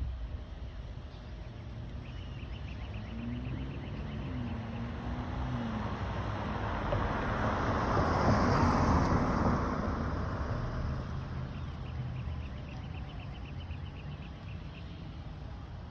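A car passing by: tyre and engine noise swells over several seconds, is loudest about halfway through, then fades away.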